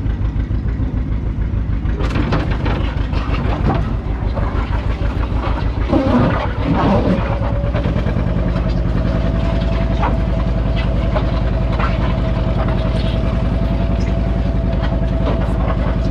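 Tractor engine running with a slow, pulsing beat. About eight seconds in it picks up to a steadier, faster run, joined by a steady high whine.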